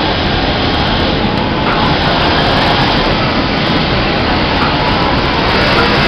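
Steady, loud din of a garment factory sewing floor, with many industrial sewing machines running at once.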